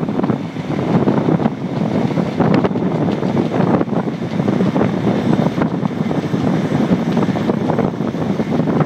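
Wind rushing and buffeting over a microphone held out of the window of a train moving at speed, mixed with the train's running noise on the track.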